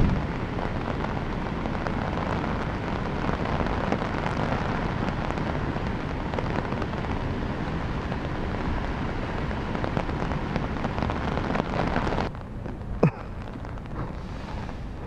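Heavy rain falling steadily as a dense hiss, dropping to a quieter hiss about twelve seconds in, with one short sharp click soon after.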